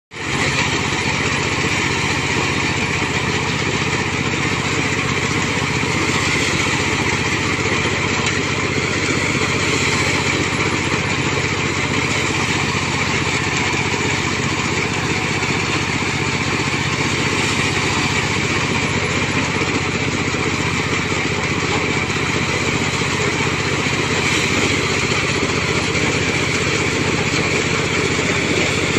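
Small combine harvester's engine and machinery running steadily, with no change in speed.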